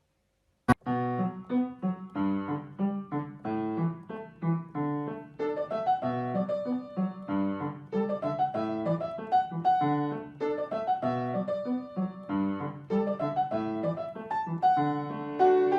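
Piano music: a steady run of struck notes. It starts with a click after a brief silence, under a second in.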